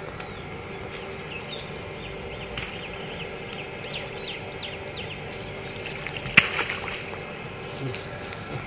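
Outdoor ambience with short falling chirps of small birds over a faint steady hum. About six seconds in comes one sharp slap-splash as the baited fishing line is thrown into the pond.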